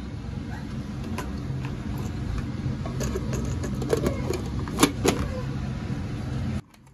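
Clicks and knocks of a plastic vegetable chopper's bowl and lid being handled and fitted together, over a steady low hum that cuts off suddenly near the end.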